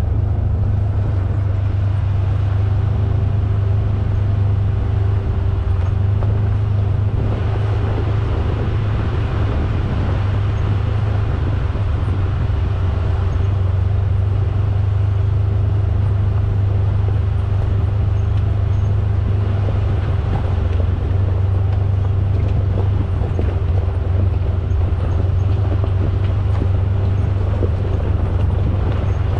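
2022 Polaris General XP 4 side-by-side driving, its engine and drivetrain making a steady low drone with a faint constant hum above it.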